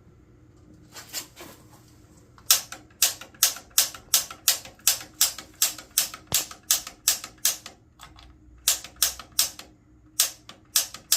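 Piezo igniter on a gas water heater's pilot clicking over and over, about two to three sharp snaps a second, in three runs with short pauses between: repeated tries to light the pilot flame.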